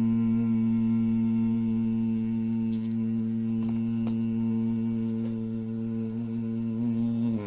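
A man humming one low, steady note with his mouth closed, held without a break and cut off abruptly near the end, with a few faint clicks over it.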